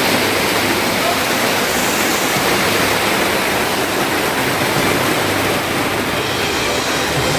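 Heavy rain falling in a dense, steady roar.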